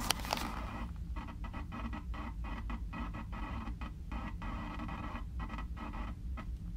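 Steady electrical hum and static hiss that flutters, dropping out about three or four times a second, with two sharp clicks right at the start. It is the kind of noise heard as electrical interference on the equipment.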